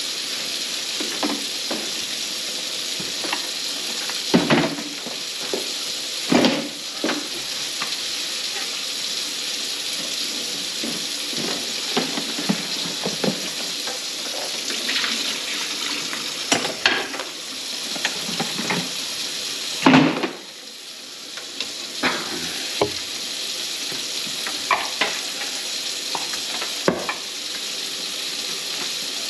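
Steady hiss, like rushing water, from work on a kitchen sink drain line clogged with grease. Scattered sharp knocks and clatters punctuate it, the loudest about twenty seconds in, after which the hiss briefly drops.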